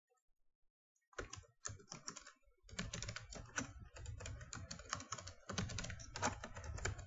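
Computer keyboard keystrokes: a password typed in a rapid run of clicks starting about a second in, with a short break partway through.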